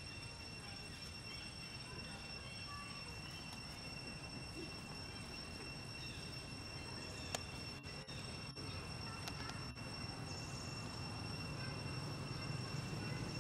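Forest ambience: insects giving a steady high-pitched drone over a low rumble that grows louder toward the end, with a single sharp click a little past halfway.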